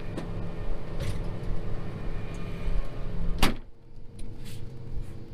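John Deere T670i combine's engine running steadily. About three and a half seconds in, a single sharp bang, the cab door shutting, after which the engine and outside noise are muffled.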